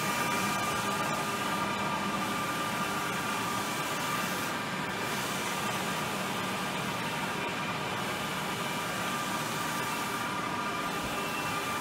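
Wide-format UV roll-to-roll printer running while it prints on soft film: a steady mechanical hiss and hum with a few steady tones, the hiss dipping briefly about every three seconds.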